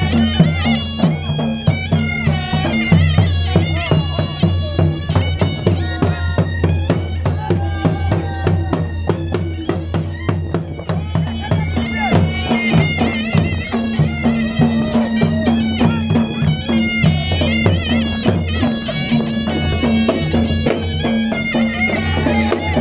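Balochi folk music for the chap dance: a dhol beats a steady rhythm under a shrill, wavering melody from a surna (double-reed pipe).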